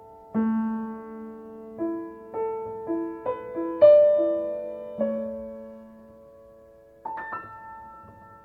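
Solo piano, tuned with C at 528 Hz, playing slow, sparse notes that ring and fade. A gentle run of notes climbs to the loudest note a little before the middle, the sound dies away, and a new chord comes in near the end.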